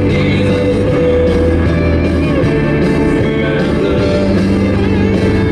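Background rock music with guitar, loud and steady.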